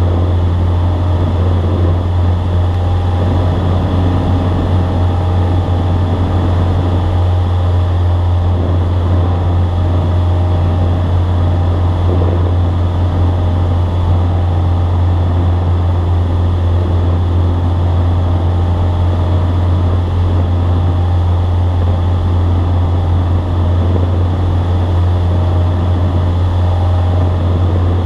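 Single-engine light airplane's piston engine and propeller heard from inside the cabin, a steady drone with a strong low hum, holding constant power in the climb just after takeoff.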